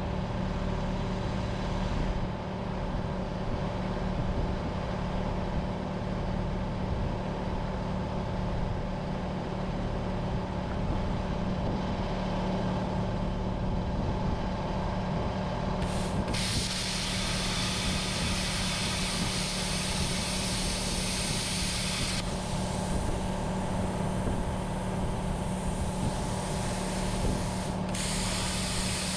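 An engine running steadily with an even hum. A loud, steady hiss starts suddenly about sixteen seconds in, stops about six seconds later, and starts again near the end.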